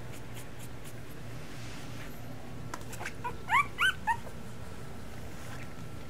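A two-week-old Miniature Schnauzer puppy whimpering: a few short, high squeaks that rise in pitch, bunched together about halfway through, three of them loudest.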